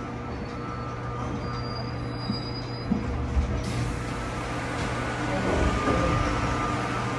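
Interior noise of a metro train pulling into a station and stopping: a steady low running hum with faint steady tones and a few small knocks. About three and a half seconds in, a rush of hissing noise sets in as the car halts and its doors slide open.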